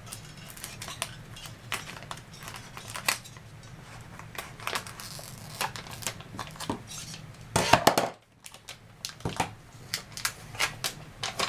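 Scissors cutting clear plastic book tape, with scattered sharp clicks and small knocks of the tape and tools being handled, and a louder cluster of clicks about two-thirds of the way through.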